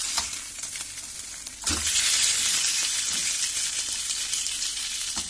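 Whole pompano sizzling as it fries in hot oil in a pan. About a second and a half in there is a knock as the fish is turned over with the spatula, and the sizzle gets louder and stays that way.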